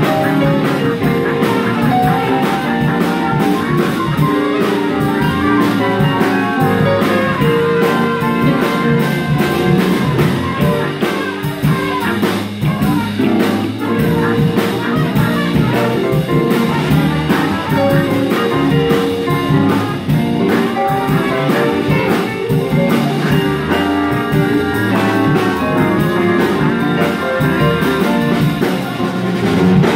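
Small jazz combo playing live with a steady beat: trumpet leading over electric guitar, cello, electric keyboard, electric bass and drum kit.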